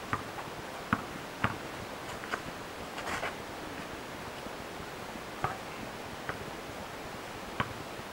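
A basketball bouncing on asphalt now and then: short, sharp knocks at irregular times, the loudest about a second and a second and a half in, over a steady hiss.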